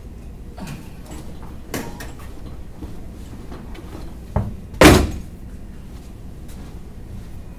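A few scattered knocks, then a dull thump and, about five seconds in, a loud sharp bang with a brief ring.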